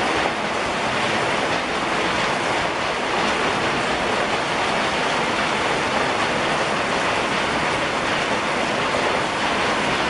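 Heavy rain pouring steadily onto leafy trees and a wooden deck: a dense, even hiss with no breaks.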